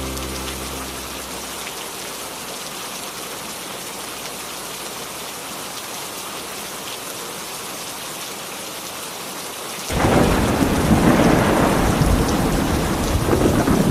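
Steady rain falling, then a loud rumble of thunder breaking in suddenly about ten seconds in and rolling on over the rain.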